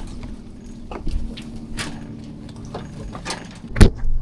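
Knocks and clatter of people and gear moving about in a small dinghy, over a steady low hum, with one loud thump near the end.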